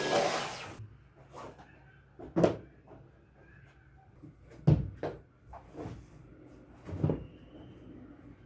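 A vacuum cleaner cuts off under a second in. It is followed by a handful of separate household knocks and thuds, the loudest about two and a half and five seconds in, as things are handled and set down during cleaning.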